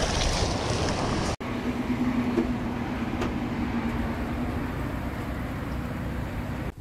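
Surf washing and wind on the microphone, cut off abruptly about a second and a half in, followed by a steady low hum over outdoor noise.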